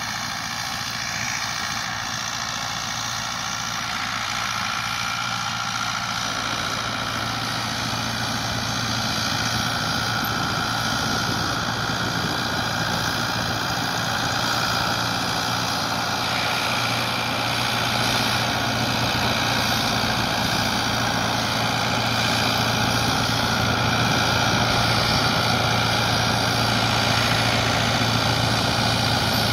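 Rakovica 76 DV tractor's diesel engine running steadily while pulling a manure spreader that is throwing out manure, with a steady mechanical whine over the engine drone. It grows gradually louder.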